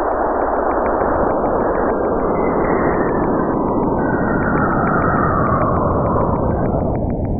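Saturn's radio emissions converted to sound: a steady, dense hiss with a whistling tone that glides down and back up through it, over a row of faint, evenly spaced ticks.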